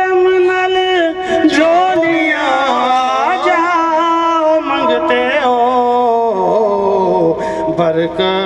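A man sings a naat, an Urdu-Punjabi devotional song in praise of the Prophet, through a microphone and loudspeakers. It is one long, drawn-out vocal line with gliding, ornamented pitch and no clear breaks between words.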